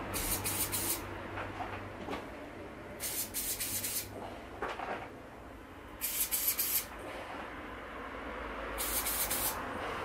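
Aerosol spray-paint can hissing in four short bursts of just under a second each, about three seconds apart, as stars are sprayed onto a galaxy painting against the edge of a piece of card.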